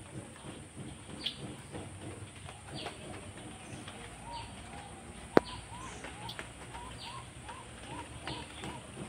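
Birds calling in the background: a short high chirp repeating about every second and a half, and partway through a quick run of little rising-and-falling notes, about two a second. A single sharp click sounds a little past halfway.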